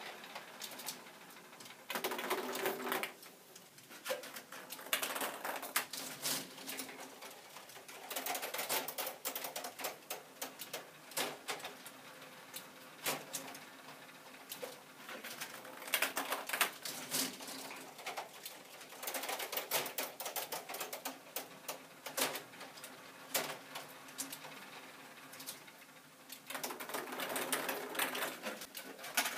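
Plastic K'Nex mechanism of a ping-pong-ball fruit machine clicking and clattering, in irregular bursts every few seconds.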